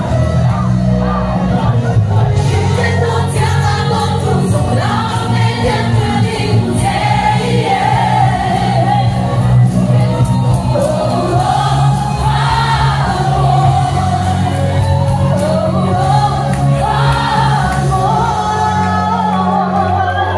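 Live song: a woman singing a melody into a microphone over instrumental accompaniment with a steady bass line, with many crowd voices singing along.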